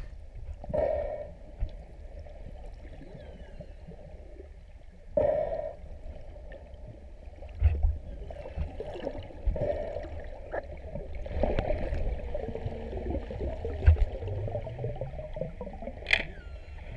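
Underwater sound on a submerged camera: a low water rumble and gurgling, with louder bursts of water noise about a second in and about five seconds in, and a brief squeak near the end.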